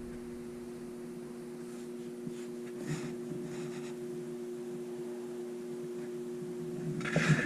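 Steady electrical hum of two even tones with faint hiss, a light knock about three seconds in, and a few faint rustles.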